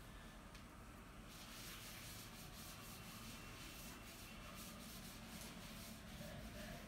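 Blackboard duster rubbed back and forth across a chalkboard, wiping off chalk: a faint, steady scrubbing hiss that starts about a second in.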